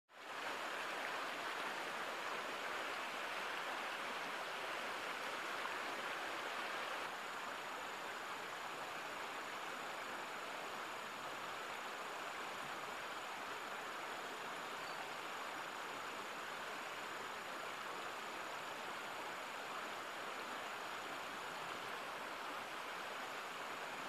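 Steady rush of water in a shallow rocky stream, with no distinct calls or knocks; it drops a little in level about seven seconds in.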